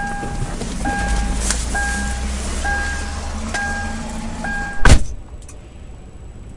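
A car's electronic warning beeper sounds a steady two-note tone a little more than once a second over low engine and road rumble. A single loud bang cuts in near the end, after which the beeping stops.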